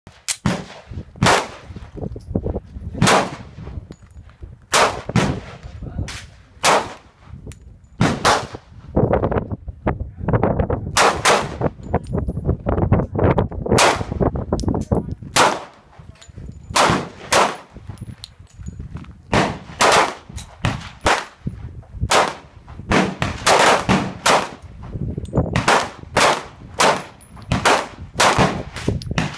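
Gunfire at an outdoor shooting range: dozens of shots at an irregular pace, some in quick runs of several, each with a short echo.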